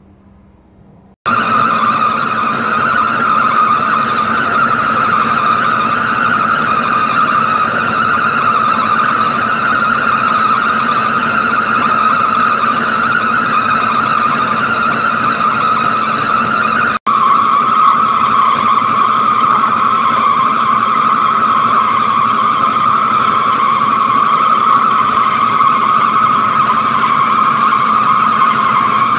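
Carbide-cartridge trepanning tool cutting into a Grade 5 titanium forging on a lathe under water coolant: a loud, steady, high-pitched squeal with a lower hum beneath it. It starts abruptly about a second in, breaks off for an instant a little past halfway, and carries on slightly lower in pitch.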